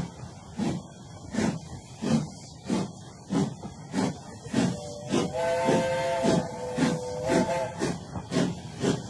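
Steam locomotive chuffing at a steady pace, about three chuffs every two seconds, with a chord steam whistle blown for about three seconds around the middle.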